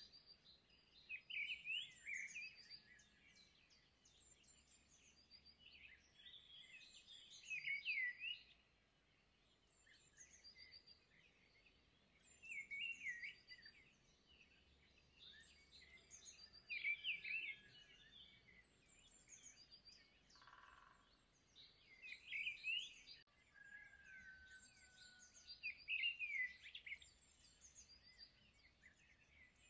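Faint birdsong: short, quick chirping phrases repeated about every four to five seconds.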